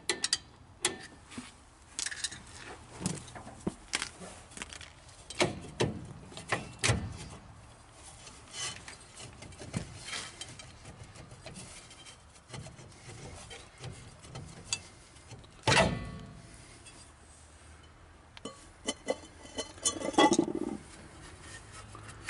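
Irregular metallic clinks, knocks and scraping as a rusted drum brake is worked loose and pulled off a 1948 Nash Ambassador's front wheel hub. One knock about sixteen seconds in is the loudest, and a rattling cluster of knocks comes near the end.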